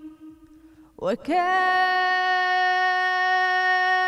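A woman singing a Sufi song solo with no instruments: a held note fades away, then about a second in her voice slides up into one long, steady note.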